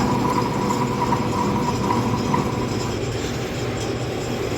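A machine running steadily with a mechanical rumble and a faint high whine that fades out about two and a half seconds in.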